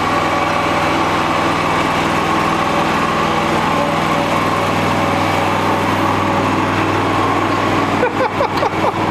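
Walker H38 riding mower's engine running steadily as the mower moves off.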